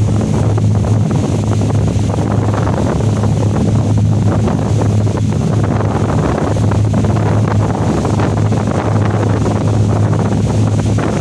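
Steady low drone of a boat engine, with wind buffeting the microphone and water noise over it.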